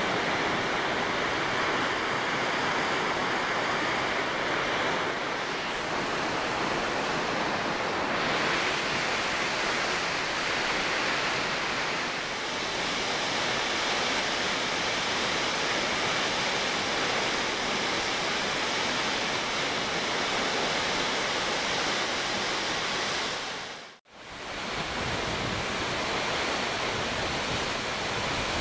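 Waterfall's steady rush of falling water. Near the end it drops out to silence for a moment and comes back.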